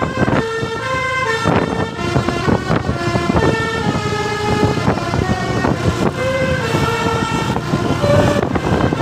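Basuri telolet multi-tone horn playing a tune: loud held notes that step up and down in pitch every fraction of a second, over a low rumble.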